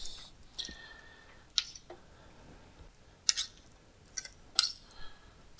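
Metal fork and spoon clinking against a ceramic bowl while tagliatelle in cream sauce is twirled and pressed into it: about five sharp clinks, spaced irregularly.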